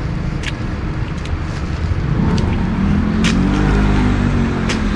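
A motor vehicle's engine running close by, its pitch rising from about two seconds in and then holding steady. Over it, four sharp splashes of rain boots stomping in a shallow puddle.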